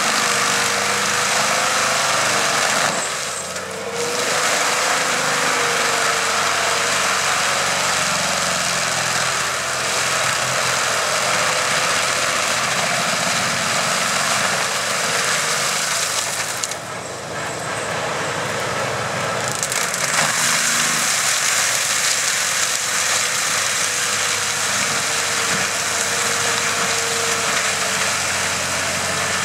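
AHWI M 650 forestry mulcher on a Fendt 930 Vario tractor grinding a tree stump: the cutter rotor chewing through wood with a steady whine, over the tractor's six-cylinder diesel working under load. The grinding noise drops briefly twice, about 3 seconds in and again about 17 seconds in.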